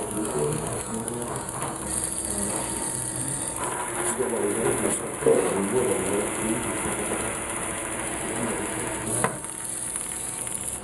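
Small electric motors of a fischertechnik robot arm running as the arm swings and positions its gripper, with gear whirring and light knocks, and a sharp click about nine seconds in.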